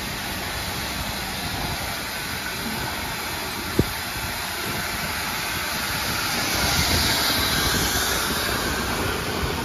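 Steam locomotive D1410 hissing steam: a steady hiss that swells louder about six to eight seconds in, with one sharp knock about four seconds in.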